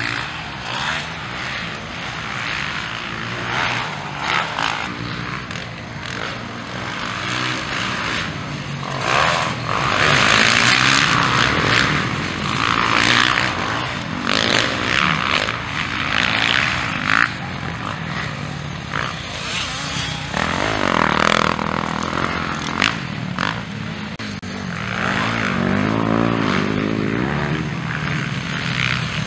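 Motocross dirt bikes racing on a dirt track, their engines revving up and down as the riders work the throttle through corners and jumps. It is loudest in the middle, and an engine climbs in pitch near the end.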